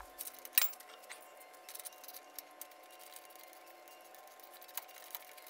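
Scattered small clicks and taps of a hand tool and plastic parts as a 3D-printed phone mount is worked loose from a bicycle handlebar, the sharpest click about half a second in. A faint steady hum sits underneath.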